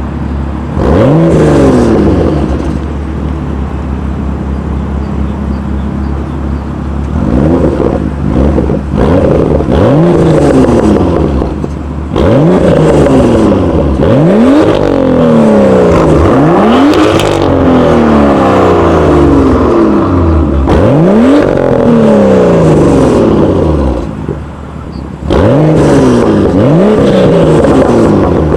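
BMW M2's turbocharged straight-six free-revving through an aftermarket sports exhaust. It idles steadily for several seconds, then is blipped about eight times, each rev climbing sharply and falling back toward idle.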